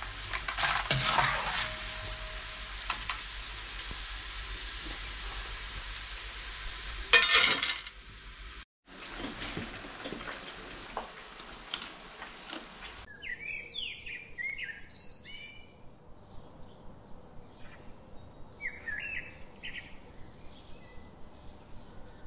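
Jackfruit strips deep-frying in oil in a steel pan, with a steady sizzle, and a metal slotted ladle stirring and clinking against the pan. There is a brief loud clatter about seven seconds in. From about thirteen seconds in the sizzle is gone and birds chirp in short calls.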